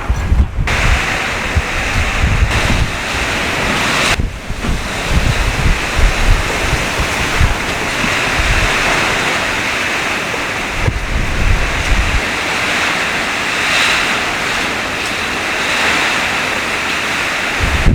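Strong, gusty typhoon wind rushing through garden plants, with heavy buffeting on the microphone that eases off about two-thirds of the way through and comes back near the end.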